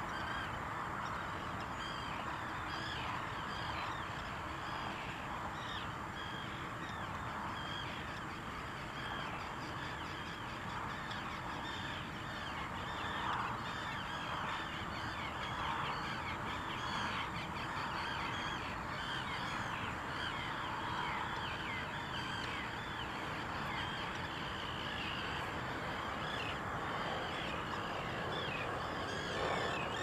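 Many birds calling at once: a dense, continuous chatter of short, falling calls over a steady rushing background.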